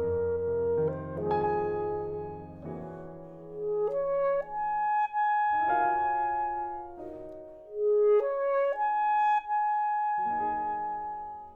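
Alto saxophone playing a slow melody of long held notes over piano accompaniment, with short breaks between phrases.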